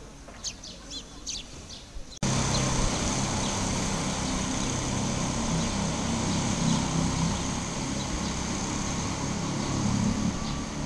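Faint bird chirps at first; then, after an abrupt cut about two seconds in, the steady low rumble and hum of a Wengernalpbahn electric rack-railway train pulling away up the line, with faint birdsong still over it.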